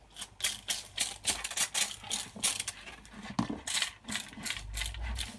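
Hand spray bottle squeezed again and again, misting water in a rapid, uneven run of short hisses with trigger clicks.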